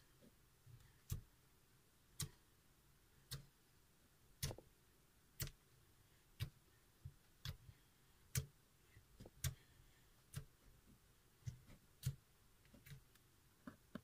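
Glitter slime pressed with a single finger, each poke giving a short, sharp click or pop, about one a second.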